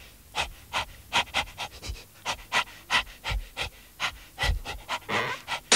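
Cartoon dog panting: quick, even breaths, about four a second, with a denser burst of noise near the end.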